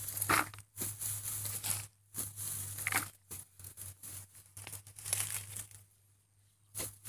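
A small-bladed, wooden-handled digging tool chopping and scraping into dry clay soil among rice stubble, in irregular strokes with crumbling clods and rustling straw.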